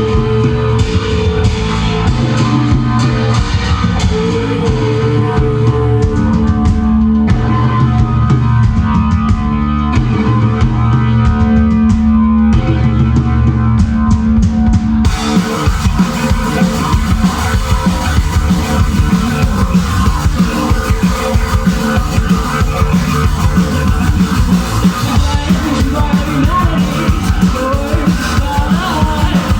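A rock band playing loud and live: electric guitar and bass over a drum kit. About halfway through the sound fills out as cymbals come in.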